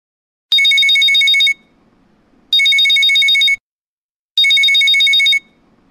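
Mobile phone ringing: three one-second bursts of a rapid electronic trill, about two seconds apart.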